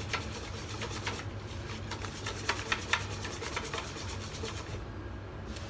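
Wire balloon whisk beating a smooth batter in a stainless steel bowl: quick repeated strokes, the wires scraping and clicking against the metal. The whisking lets up shortly before the end.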